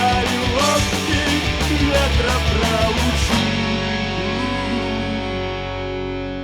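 Punk rock band outro: distorted electric guitars and drums play until about three seconds in, then stop on a final chord that rings on and slowly fades.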